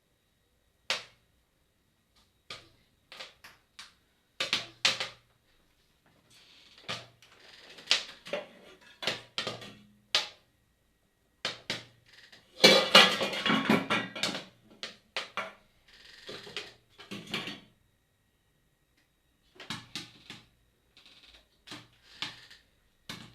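A cooking pot of freshly popped popcorn being handled, with irregular sharp clicks and knocks of metal and kernels, and a denser rattle about thirteen seconds in.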